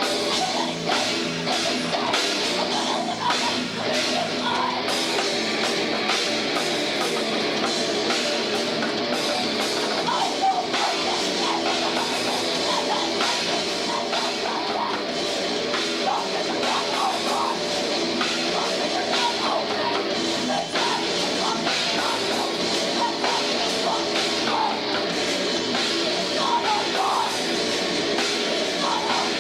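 A rock band playing live in a heavy style, with a drum kit pounding under dense electric instruments. The sound is loud and even, with no break.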